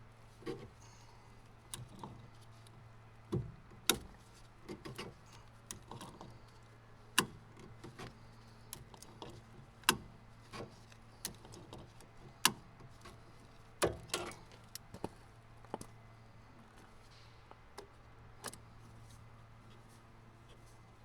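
Irregular sharp clicks and knocks of hand tools and parts being handled while the excavator's fuel filter is taken off, over a steady low hum.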